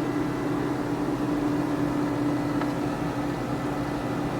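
A steady machine hum with one even low tone and a faint hiss.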